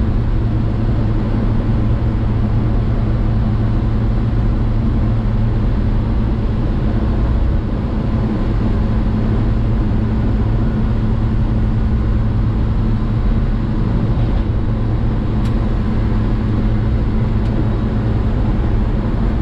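Cab interior of a 1970 Chevy C10 pickup on the move: its straight-six engine running steadily with road noise, a constant loud drone.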